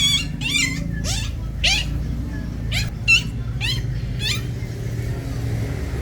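Kittens meowing: about eight short, high-pitched, wavering mews in quick succession, which stop a little over four seconds in, over a steady low hum.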